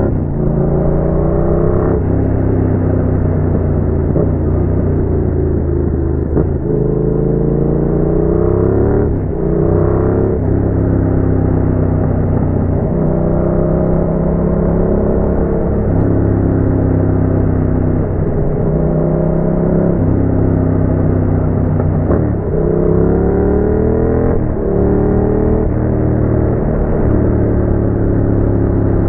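Yamaha MT-07's parallel-twin engine through a Roadsitalia aftermarket exhaust, pulling hard with the pitch climbing and then dropping sharply several times, as at gear changes. Between these pulls are stretches of steady running.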